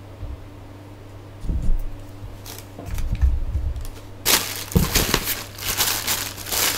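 A few dull knocks from handling things on a desk, then, about four seconds in, the crackling and crinkling of a clear plastic bag being rummaged through.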